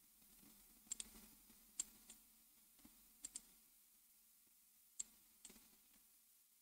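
Faint, sparse clicks of a computer mouse and keyboard being used: about nine short clicks, some in quick pairs, over a quiet room.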